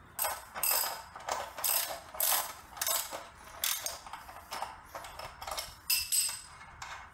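Hand ratchet wrench clicking in repeated short strokes, about two a second, as it turns a motorcycle's front axle nut to take it off.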